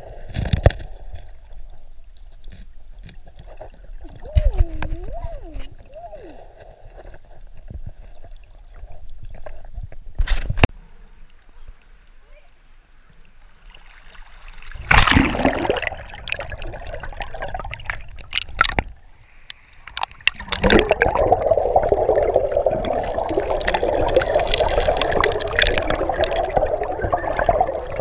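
River water sloshing, splashing and gurgling around a camera held at and under the surface of a fast-flowing river, with a loud splash about 15 seconds in and a steady rushing of water in the last third.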